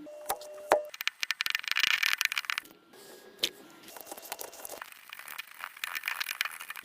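Dense, rapid crackling and crinkling, like material being crumpled, scraped or peeled by hand. It comes in two spells, about a second in and again from about four seconds in.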